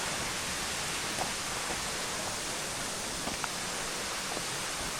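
Water rushing over a cascade or small waterfall: a steady, even rush of falling water.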